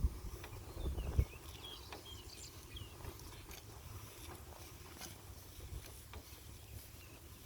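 Cattle grazing close by, tearing grass in scattered short clicks, with wind buffeting the microphone in gusts, loudest about a second in.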